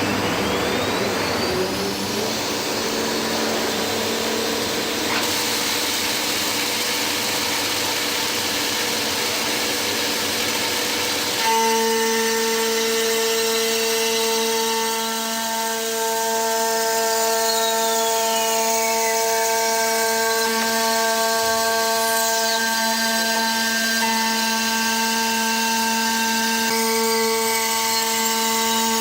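Bottero Pratica Plus CNC glass-working centre running as it mills glass: a steady mechanical whine over a hiss. About a third of the way in it changes to a clearer, louder, even-pitched whine, with a few faint falling glides later.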